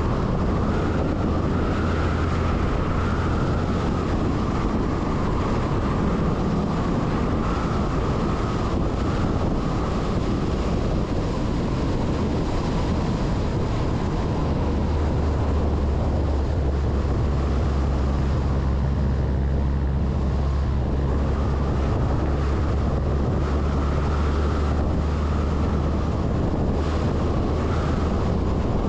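MAN LE 280 B 4x4 truck driving along a sealed road: a steady diesel engine drone under tyre noise and wind on the microphone. The low engine hum grows stronger about halfway through.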